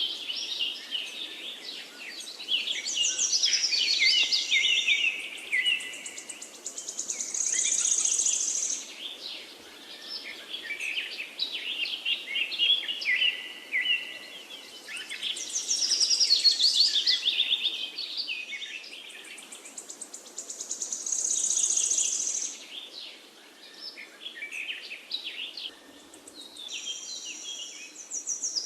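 Several songbirds chirping and singing in overlapping, fast phrases that swell and ease off in waves. A faint steady rush of flowing water runs underneath.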